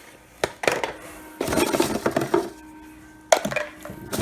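Hard plastic vacuum attachments being handled among styrofoam packing peanuts: a few sharp knocks and clatters with stretches of rustling between them.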